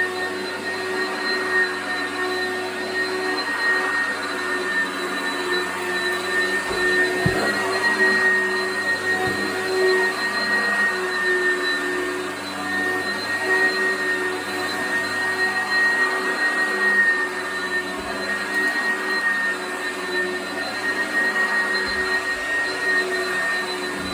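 Oreck XL commercial upright vacuum cleaner running steadily over carpet, a constant motor hum and whine with a few faint low knocks.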